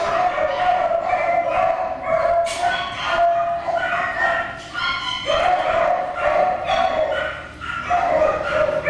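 Many dogs barking and yipping at once, a dense, unbroken chorus: a kennel of dogs excited at feeding time, each wanting to be fed first.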